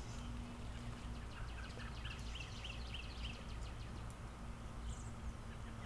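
Quiet outdoor ambience: a steady low hum with faint bird chirps, a run of short high notes between about one and three and a half seconds in.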